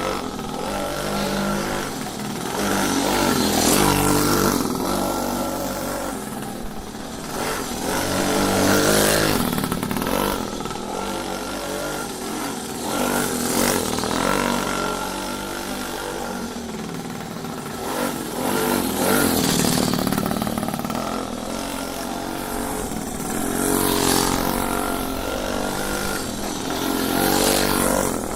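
A motorcycle engine running and revving, its pitch rising and falling and its loudness swelling about every four to five seconds.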